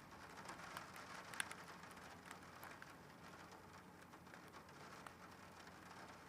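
Faint rain, with scattered drops ticking irregularly over a soft hiss and one sharper drop tap about a second and a half in.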